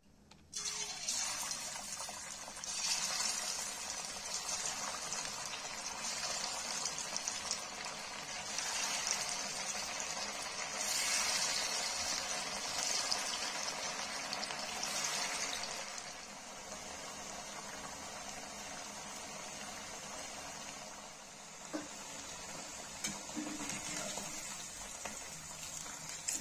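Marinated chicken pieces deep-frying in hot oil, a dense crackling sizzle that starts abruptly as the pieces go into the oil about half a second in. It is louder in the first half and settles to a steadier sizzle later.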